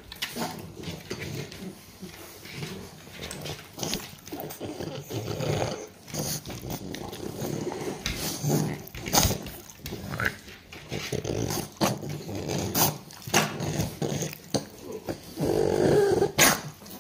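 French bulldogs growling in short irregular bursts, with sharp clicks scattered between them; the longest, loudest growl comes near the end.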